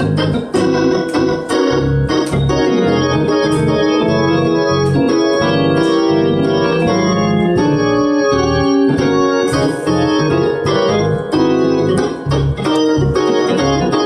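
Hammond-type two-manual organ played with both hands: full sustained chords over a bass line of repeated low notes, running without a break.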